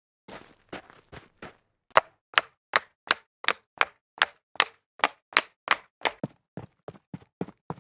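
Jogging footsteps on concrete, first coming down concrete stairs, then on level concrete: sharp, even footfalls about two and a half a second, faint for the first second or so and then loud and steady.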